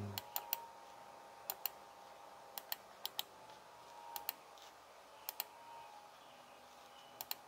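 Sharp clicks from working a computer's controls, mostly in quick pairs about once a second, over a faint steady whine.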